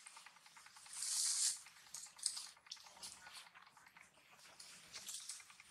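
Newborn monkey suckling at its mother's nipple: faint, soft wet clicking and smacking, with a brief louder rustle about a second in.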